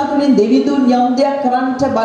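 Speech only: a preacher's voice over a microphone, with no break.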